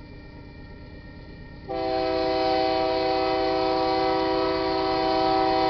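A Union Pacific GE AC44CW locomotive's multi-chime air horn sounds one long, steady chord, starting abruptly a little under two seconds in and still going at the end. This is the horn warning for the grade crossing the train is approaching.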